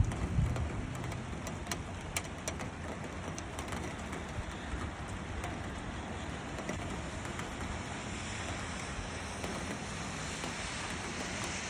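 Steady hiss of wind and rain, with scattered sharp drip ticks in the first few seconds. A low rumble fades out in the first second.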